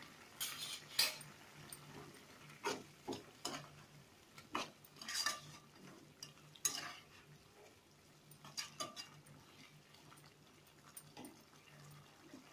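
A metal slotted spoon scraping and clinking against a cooking pan as chicken curry is stirred, in about a dozen short, irregular strokes.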